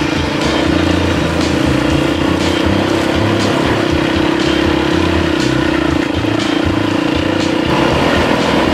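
Dirt bike engine running steadily under way, heard from the bike, holding one pitch until it changes near the end.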